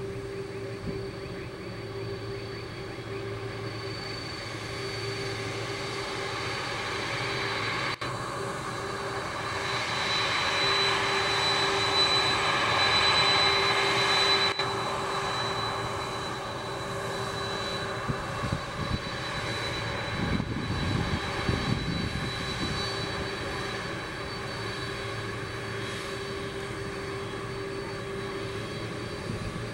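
Boeing 767-300 freighter's twin turbofan engines at taxi power: a steady hum with a high whine over it. It grows louder for several seconds as the jet turns toward the listener, then drops off abruptly about halfway through.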